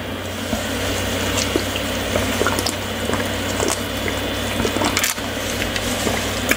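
A person drinking from a large lidded cup close to the microphone: a steady liquid sound with small wet clicks throughout.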